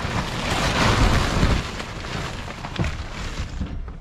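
Plastic tarp rustling and crinkling as it is pushed and pulled aside, over a low rumble of wind on the microphone; the noise is loudest about a second in and dies down near the end.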